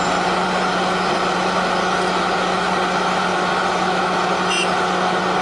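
A heavy vehicle engine idling steadily, with a constant low hum under an even noise.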